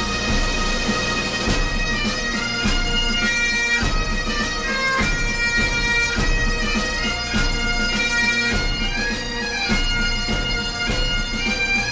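Bagpipe music: a pipe tune played over steady drones.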